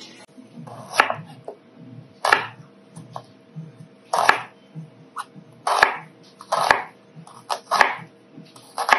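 Kitchen knife slicing through a peeled onion onto a bamboo cutting board: about eight crisp, crunchy strokes at an uneven pace.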